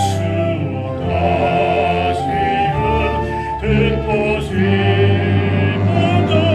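A baritone singing held notes with vibrato over instrumental accompaniment.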